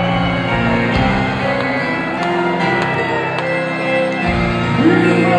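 A ska band playing live through a ballroom's PA, heard loud from within the crowd: a run of long held notes over a bass line that changes a second in and again a little after four seconds.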